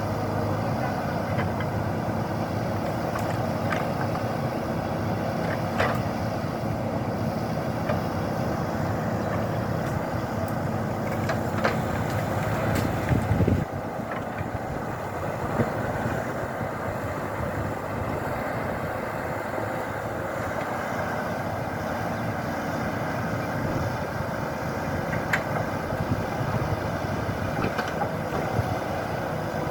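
An engine running steadily, growing louder a little before the middle and then dropping suddenly, with scattered faint clicks and knocks.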